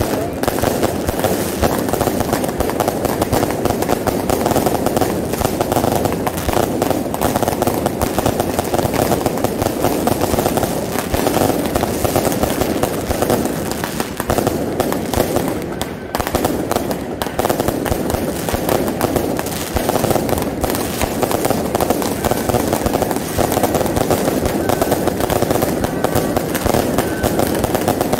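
Aerial fireworks bursting overhead in a dense, unbroken barrage of crackling pops and bangs, easing slightly about halfway through before picking up again.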